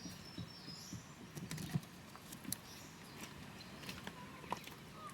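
Scattered light clicks and rustles of handling, with a few faint high bird chirps near the start.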